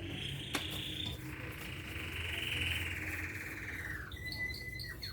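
A small songbird singing: a long, fast trill, then a steady whistled note with a few short higher chirps near the end.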